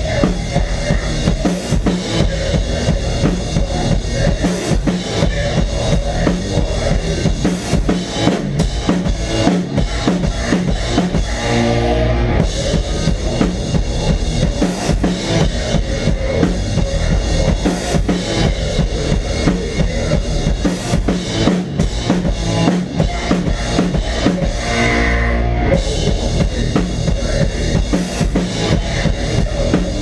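A Pearl drum kit with Zildjian cymbals played hard and fast, close up, in heavy metal: driving bass drum, snare and crashing cymbals over the band's distorted guitar. Twice the beat gives way briefly to a held, ringing chord.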